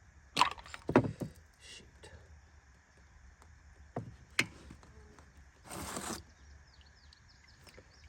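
Sharp knocks and clicks of tools at the oil drain of a Honda Rancher 350 ATV as the drain plug comes out and the oil gushes out harder than expected. Two loud knocks come in the first second and two more around four seconds. A brief rushing noise follows near six seconds.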